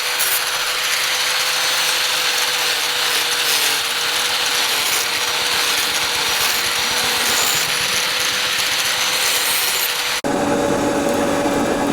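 Steady, hissy scraping of a tool working metal or wood. About ten seconds in it cuts suddenly to a running motor with a steady hum.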